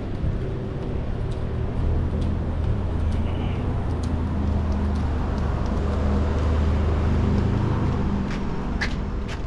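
Steady low hum of a motor vehicle's engine with road noise, with a few light clicks near the end.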